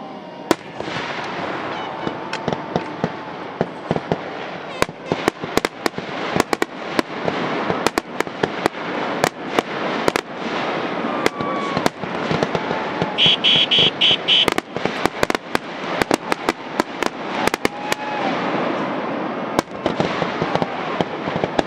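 Aerial fireworks display: a rapid, near-continuous barrage of sharp bangs over dense crackling, with the bangs coming thickest through the middle and again near the end.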